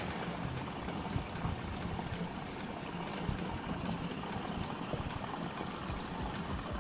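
Steady trickle and flow of water circulating through a planted freshwater aquarium.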